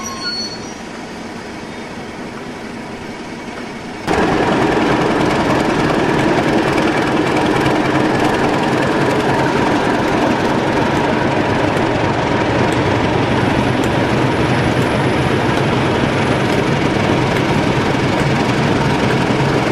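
A quieter train rumble with a wheel squeal dying away at the start, then about four seconds in a sudden jump to the loud, steady running of a Class 31 diesel locomotive's English Electric engine close by.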